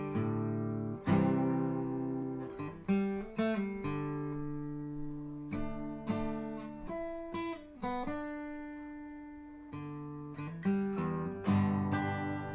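Acoustic guitar music: strummed and picked chords, each striking sharply and ringing out before the next.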